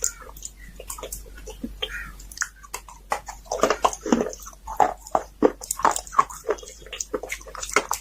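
Close-up crunching of slate pencils being bitten and chewed: sharp, irregular cracks, coming faster and louder from about halfway through.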